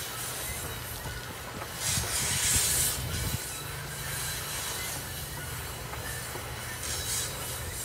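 Freight train of tank cars rolling past: a steady rumble of wheels on rail, with a loud burst of high-pitched wheel squeal about two seconds in, lasting about a second and a half, and a shorter one near the end.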